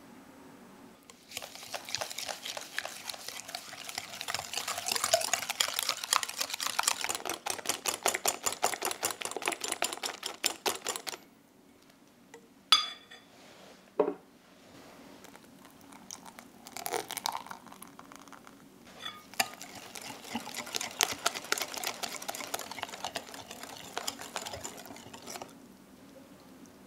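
Stainless wire balloon whisk beating eggs and sugar in a glass bowl: fast, rapid clinking of the wires against the glass in two long bouts. Between them, after a short pause, come two sharp knocks.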